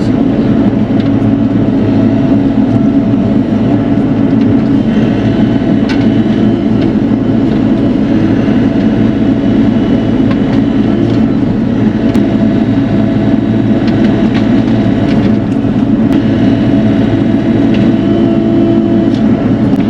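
Bobcat E42 R2 series mini excavator's diesel engine running steadily, with a few faint clicks.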